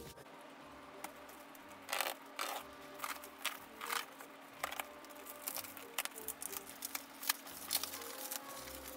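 Fingers picking and peeling at the plastic wrap and packing tape on a cardboard shipping box, making irregular crinkles, scratches and small clicks.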